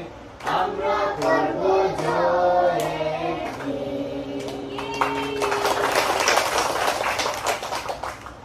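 A group of schoolchildren singing a song together in chorus, led by a woman, with long held notes. About five seconds in, fast clapping by many hands takes over.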